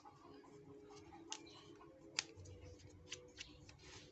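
Several faint, sharp clicks of a small screwdriver working at the plastic back case of a feature phone, the loudest about two seconds in.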